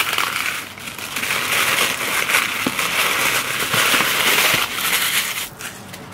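Tissue paper rustling and crinkling as hands pull it open, dying away near the end.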